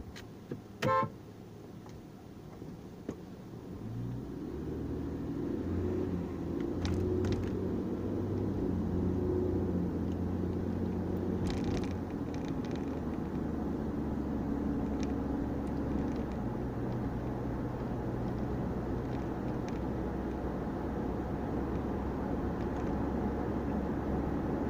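Inside a car's cabin, engine and road noise builds as the car pulls away from the lights and accelerates, then runs steadily at cruising speed. A short beep sounds about a second in, before the car moves off.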